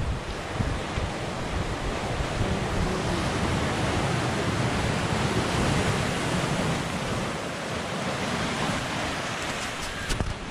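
Ocean surf washing and breaking over a rocky lava shoreline, a steady rush of water, with wind gusting on the microphone.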